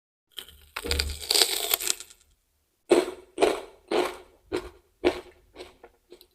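Close-miked bite into crisp raw vegetables: a long crackling crunch, then about eight chewing crunches, roughly two a second, getting fainter.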